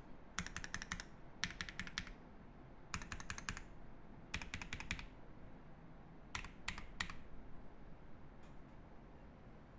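Mechanical keyboard with lubed Seal switches, a brass plate and GMK Handarbeit+ keycaps being typed on in four quick runs of keystrokes. Three separate keystrokes come around six to seven seconds in, and after that only a couple of faint ticks.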